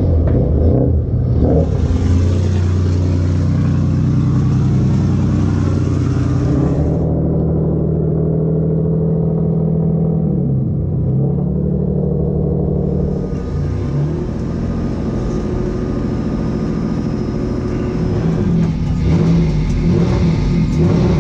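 Hyundai Genesis Turbo race car's engine running at low, fairly steady revs, heard from on board. About ten seconds in, its pitch sags a little and comes back up.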